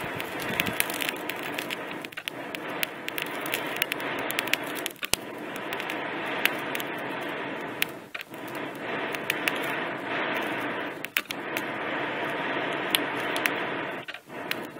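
Charcoal fire in a small brick forge under the air blast of a fuigo box bellows: a steady rush of air and fire with sharp crackling of sparks. The rush dips briefly about every three seconds as the bellows stroke reverses.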